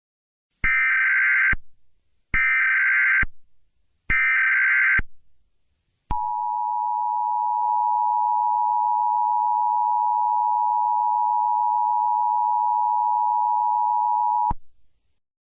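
Emergency Alert System SAME header: three short bursts of warbling digital data tones, about a second apart. Then comes the EAS two-tone attention signal, 853 and 960 Hz sounded together, held steady for about eight seconds. Together they signal the start of a new alert message.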